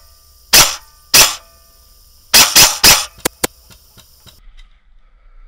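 Airsoft gun firing sharp single pops: two about half a second apart, then a quick run of three, then two fainter clicks. A steady high hiss runs under the shots and cuts off near the end.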